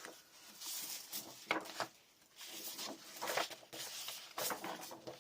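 Sheets of scrapbook paper being handled and laid down: irregular rustling and sliding with a few light taps.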